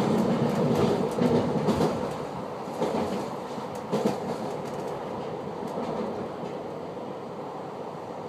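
Running noise inside a moving commuter train's VB2N double-deck coach: a steady rumble of wheels on rails with a few clicks over rail joints, easing off after about two seconds.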